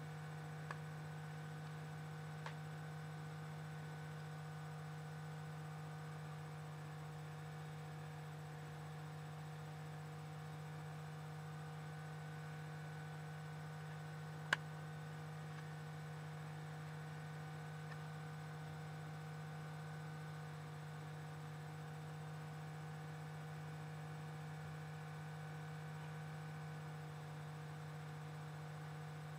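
Steady electrical hum, with two faint clicks in the first few seconds and one sharp click about halfway through.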